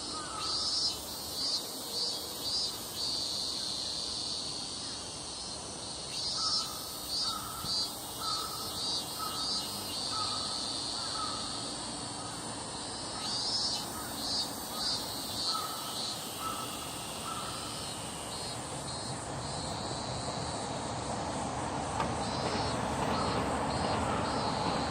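Animal calls outdoors: runs of short repeated calls, about two a second, coming back every several seconds over a steady high hum. A low rumbling noise grows louder near the end.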